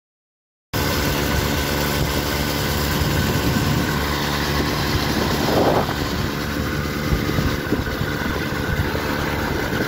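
A motor vehicle driving along a road, heard from on board: a steady engine hum under loud road and wind noise. It starts abruptly just under a second in, with a brief louder swell around the middle.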